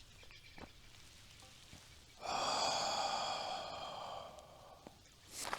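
A man's long breathy sigh, starting suddenly about two seconds in and fading away over the next two and a half seconds.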